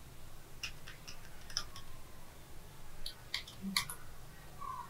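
Computer mouse clicking: several short, sharp clicks scattered across a few seconds, some in quick pairs, over a faint low hum.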